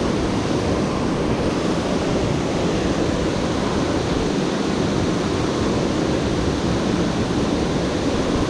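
Steady rushing of water pouring over a dam's man-made waterfall, an even, unbroken roar.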